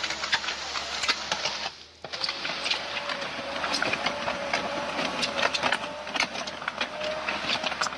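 Construction machinery running: a steady engine noise with a thin whine and a rapid, irregular clatter. The sound drops out briefly about two seconds in.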